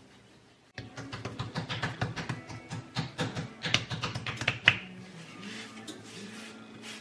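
Pork frying in a pan: hot oil crackling and spattering in a dense run of sharp pops that starts suddenly about a second in and eases after about four seconds into a softer sizzle, with background music underneath.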